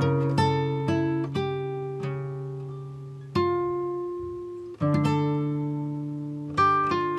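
Background music on acoustic guitar: plucked notes and chords, each left to ring out and fade slowly before the next.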